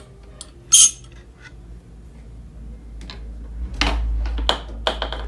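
Small metal parts and tools clinking and knocking on a workbench: one sharp bright clink about a second in, then a cluster of heavier knocks near the end.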